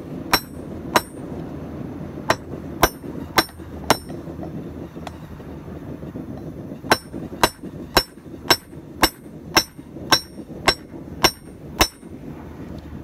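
A 3-pound drilling hammer striking a hot railroad spike on a small 20-pound anvil, each blow with a bright metallic ring. There are six blows over the first four seconds, a pause of about three seconds, then an even run of about ten blows at roughly two a second.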